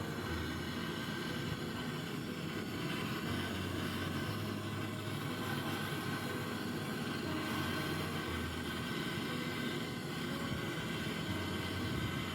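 Steady mechanical drone of a motor running, with a low hum whose strength shifts every few seconds.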